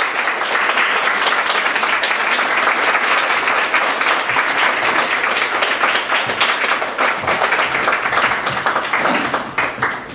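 Audience applauding: dense, steady clapping that thins out and fades near the end.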